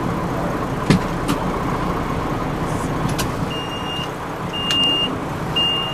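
Fire engine's diesel running, heard from inside the cab, with a few light clicks. About halfway through, a reversing alarm starts beeping, a steady high beep about once a second.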